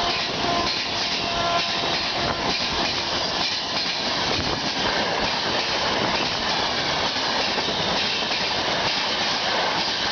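Superfast express train behind a WAP-4 electric locomotive passing at speed: a steady, dense rush of wheel and coach noise, with a brief horn note near the start.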